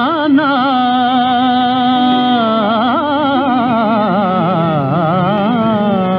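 Old Tamil film song: a singer holds long notes on a vowel with no words, shaking each note in fast, wide ornaments, over soft instrumental backing.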